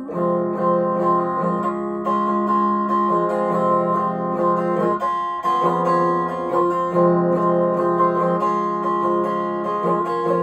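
Epiphone Les Paul electric guitar strumming chords, an instrumental stretch with the chord changing every second or two.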